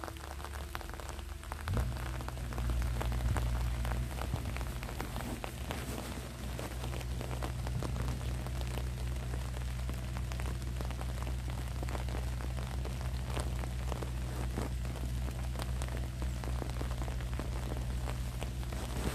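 Light rain pattering as many small, irregular drop ticks. A steady low rumble comes in about two seconds in and continues.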